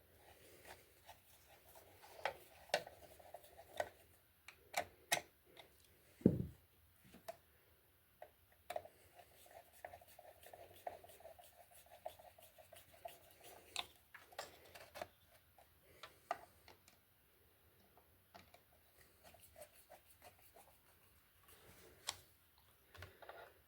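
Faint scattered clicks and scraping as a plastic double-socket faceplate and its screws are worked into a wall box by hand, with one duller knock about six seconds in.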